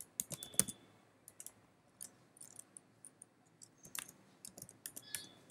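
Computer keyboard keys clicking lightly as a web address is typed, in a few short runs of keystrokes.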